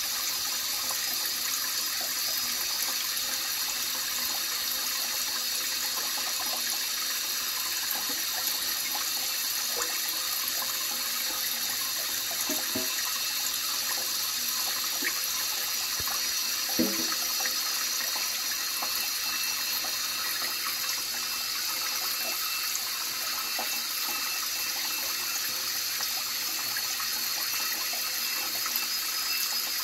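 Tap running steadily into a stainless steel sink partly filled with water: a continuous, even splashing rush.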